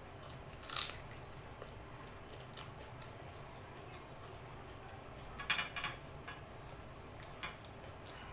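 Close-up eating sounds of rice and chicken curry eaten by hand: scattered short wet clicks from chewing and from fingers working the rice, with a quick cluster of them a little past the middle.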